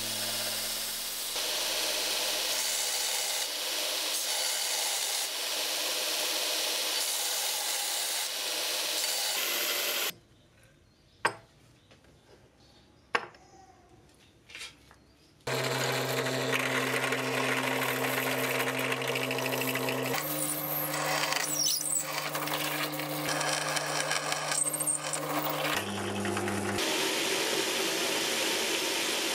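Belt grinder running while curved knife-handle pieces are pressed against the abrasive belt and shaped. About ten seconds in it stops for roughly five seconds, during which a couple of sharp clicks sound as the small pieces are set down on a bench; then grinding starts again, this time with a steady motor hum under it.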